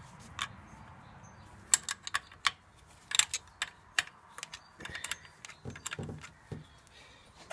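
Quarter-inch Whitworth spanner clicking and clinking against the nuts of a Solex carburettor as they are undone: irregular sharp metal ticks and taps, a few louder knocks among them.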